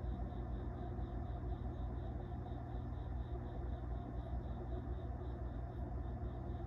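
Steady low hum, with a faint high chirp pulsing evenly about three times a second.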